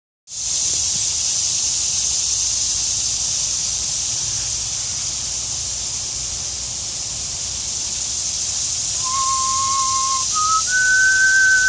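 A steady high hiss throughout, and from about nine seconds in a person whistling a few clear held notes, each step higher in pitch than the last.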